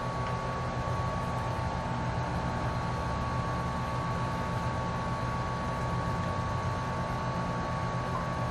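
Steady background machine hum and hiss with a faint constant high tone, unchanging throughout.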